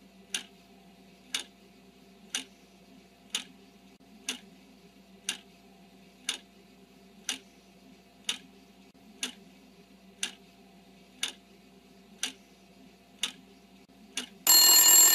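Quiz countdown timer ticking once a second over a faint steady hum, then a loud alarm going off near the end to signal that the answer time is up.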